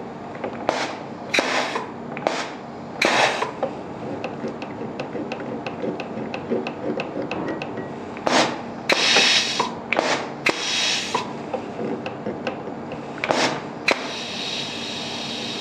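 Pneumatic cylinder cycled by a solenoid valve, each stroke letting out a short hiss of exhaust air through brass exhaust silencer-regulators, with a longer steady hiss near the end. The regulators throttle the exhaust flow to set the cylinder's speed and muffle the exhaust.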